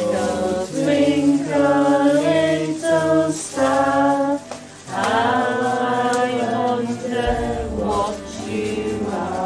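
Women's voices singing a slow song together, in long held notes with short breaks between phrases.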